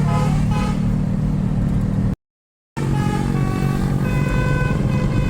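Tour bus diesel engine running with a steady low hum, with faint steady higher tones over it. The sound cuts out completely for about half a second around two seconds in.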